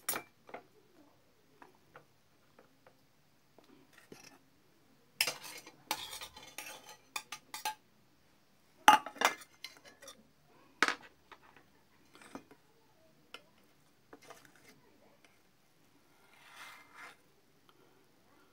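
A metal spoon clinking and scraping on an enamel plate, in bursts, as diced sweet potato is scooped off it. Near the end there is softer scraping of a knife cutting sweet potato on the plate.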